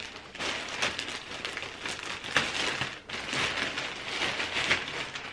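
Clear plastic bag crinkling and rustling as it is unrolled and opened by hand, the rustle swelling and fading unevenly.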